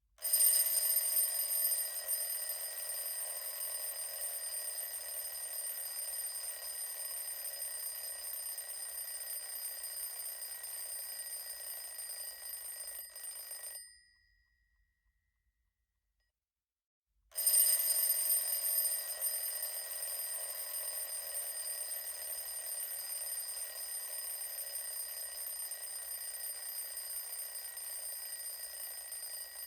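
Mechanical alarm clock's bell ringing continuously: one long ring of about thirteen seconds, a pause of about three seconds, then a second long ring.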